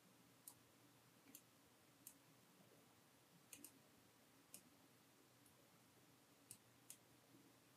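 Faint computer mouse clicks, about eight sharp clicks at uneven intervals, two in quick succession about three and a half seconds in, as path anchor points are placed.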